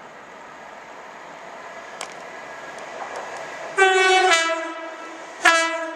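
Approaching electric multiple unit sounding its two-tone horn: a higher note stepping down to a lower one, then about a second later a short single low note, over the growing noise of the train coming in.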